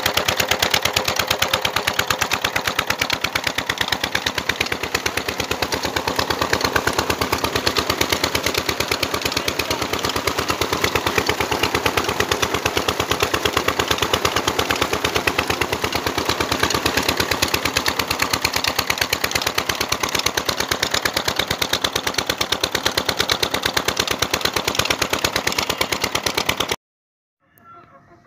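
Diesel engine of an irrigation tubewell running steadily with a rapid, even knocking beat, driving the well pump by a flat belt. The sound cuts off abruptly near the end.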